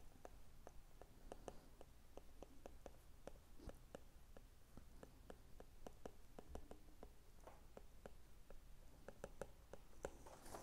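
Faint, irregular taps of a stylus on a tablet's glass screen during handwriting, several a second.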